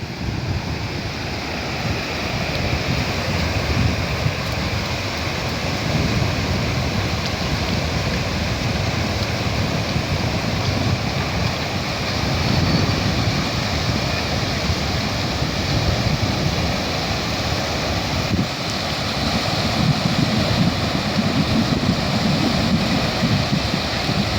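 Sea waves washing onto the shore, with wind buffeting the microphone in gusts.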